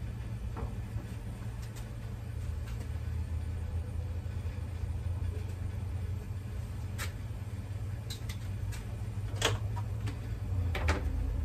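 A few sharp clicks and taps of metal kitchen tongs against a plastic food container, mostly in the second half, over a steady low rumble.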